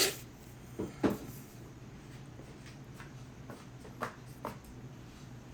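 Hard plastic knocks and clunks from a Keurig coffee maker's water reservoir being lifted off the brewer and set down: a sharp knock at the start and another about a second in, then two softer ones around four seconds.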